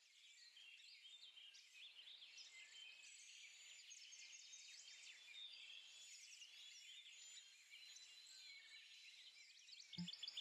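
Faint chorus of small birds chirping, trilling and whistling, growing gradually louder, with a brief low thump near the end.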